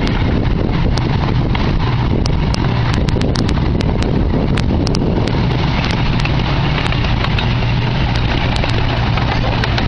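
Gasoline engine of a 16-inch gauge miniature park train running steadily with a low hum as the train rolls along, with irregular sharp clicks from the wheels on the track.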